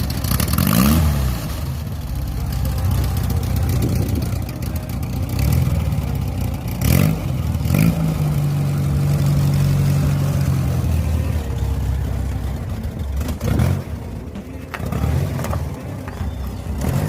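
VW Fusca (Beetle) 1300 air-cooled flat-four engine with a loud 'capetinha' sport exhaust, revved up and down from idle and held at higher revs for a few seconds, with a few sharp cracks along the way.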